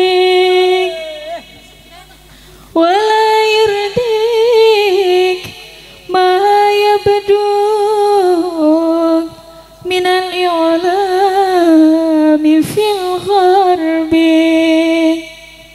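A woman singing slow phrases of long, ornamented held notes, with short pauses for breath between them.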